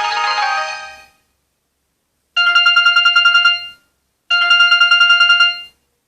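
Samsung GT-E1272 ringtones playing on a Samsung Gusto 3 phone's speaker. A melodic ringtone fades out about a second in. After a pause, a different ringtone gives two identical electronic rings, each a single steady pitch pulsing about ten times a second, with a gap between them.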